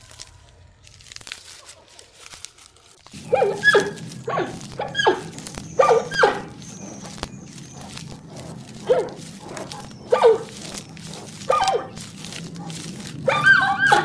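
A series of short, whining animal calls that bend down in pitch, starting about three seconds in and coming roughly once a second, some in quick pairs, over a steady low hum.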